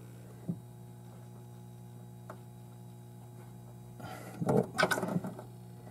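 Steady low electrical hum from the powered-on 1983 Williams Firepower II pinball machine, with a couple of faint clicks. About four seconds in comes a louder cluster of clicks and rustling as multimeter probes and wires are worked against the lamp board's connector pins.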